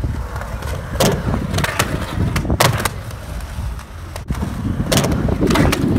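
Skateboard wheels rolling on smooth concrete with a steady low rumble, and several sharp clacks of the board striking the ground.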